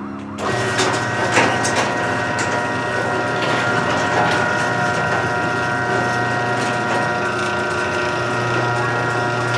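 Electric garage door opener running as the sectional garage door rolls up. It starts abruptly about half a second in and then runs steadily, with a low hum and several steady higher tones.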